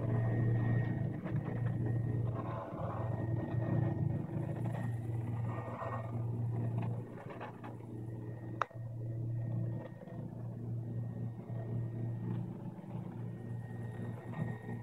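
Steady low machine hum from a homemade 3D printer and its enclosure, with a faint high whine and the loudness rising and falling. A single sharp click a little past the middle.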